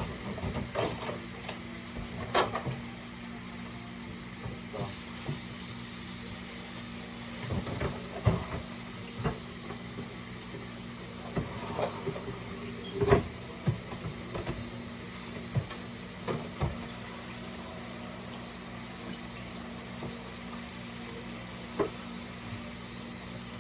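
Ground beef sizzling in a frying pan, a steady hiss, with scattered clinks and knocks of kitchen utensils and dishes.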